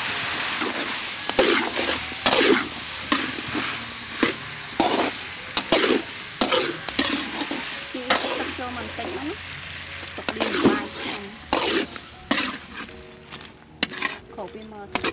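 Metal spatula scraping and tossing shrimp, bamboo shoots and long beans in a sizzling steel wok, in repeated strokes about once a second. The sizzle fades toward the end.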